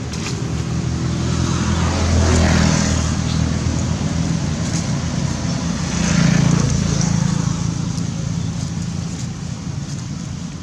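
Motor vehicle engine hum, swelling louder twice, about two seconds and six seconds in, as vehicles pass by.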